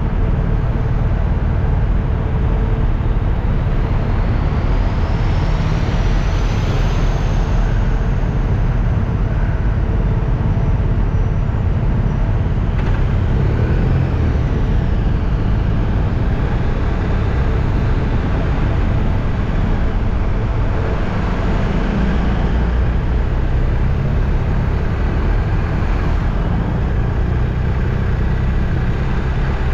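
Steady low rumble of a vehicle in motion, engine and road noise.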